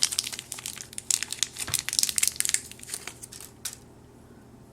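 Crinkling of a small plastic toy packet being handled and opened by hand, a dense run of crackles that stops a little under four seconds in.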